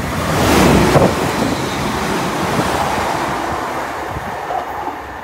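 A Class 380 electric multiple unit passing close by. The noise swells to its loudest about a second in, then gradually fades away.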